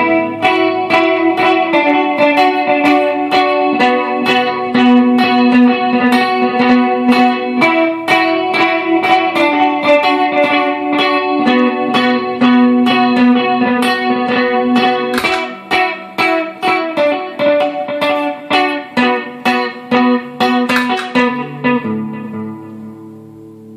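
Gibson SG electric guitar played through a Boss loop pedal: a fast run of picked notes over held lower notes. From about 15 s in the notes come in choppy pulses, and about 22 s in the playing fades, leaving a chord ringing.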